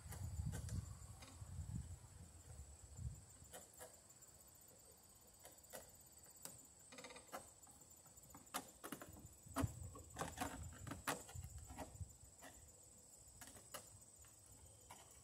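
Faint, irregular clicks and scrapes of pliers turning a wire nut onto copper wires in an outlet box, thickest a little past the middle. A steady, high-pitched insect drone runs behind.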